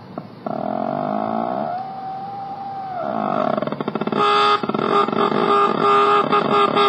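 Circuit-bent toy electronic drum kit making glitchy electronic sounds: a warbling tone that holds one steady pitch for about a second, then slides away. A little past four seconds a louder stuttering buzz with steady tones takes over.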